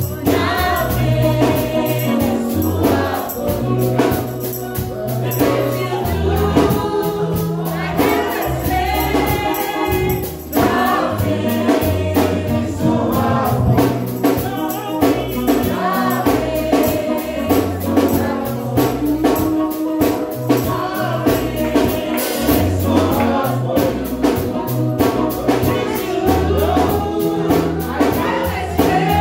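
Live gospel praise music: a group of voices singing together over a band with a bass line and a steady percussion beat.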